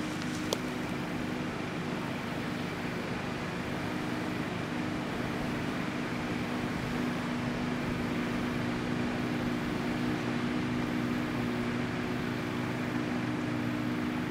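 Boat engine running steadily on the lake: a low, even drone over outdoor background noise, with a single short click about half a second in.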